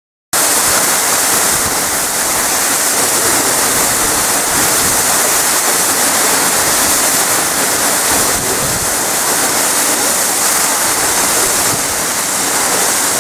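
Amidagataki, a tall waterfall, roaring steadily as the water plunges and throws spray.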